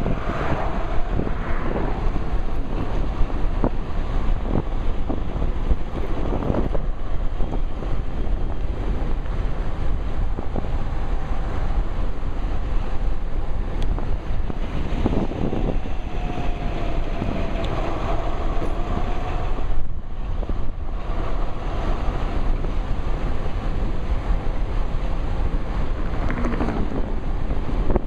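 Steady wind buffeting a shirt-pocket microphone on an electric bike moving at speed, with a car passing at the start.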